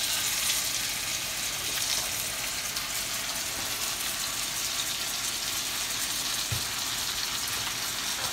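Two ribeye steaks sizzling steadily as they sear in hot butter and oil in a cast-iron skillet.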